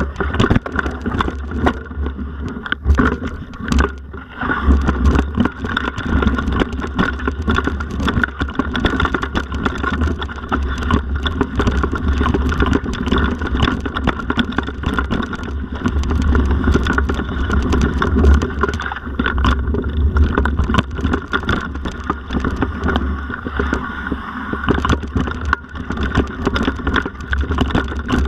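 Mountain bike ridden over a rough dirt and rock forest trail: a continuous rumble of tyres and frame with frequent sharp rattles and knocks from bumps, and wind noise on the microphone.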